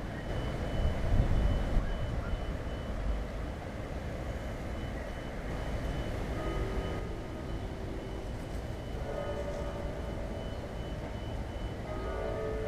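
Vehicle traffic running past as a steady low rumble that swells for a couple of seconds near the start, with a faint, rapid high beep repeating through the first half.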